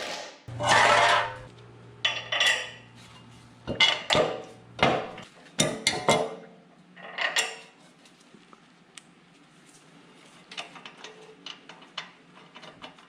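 Metal parts and hardware clanking and clinking as they are handled: a run of sharp knocks over the first several seconds, then lighter ticks near the end.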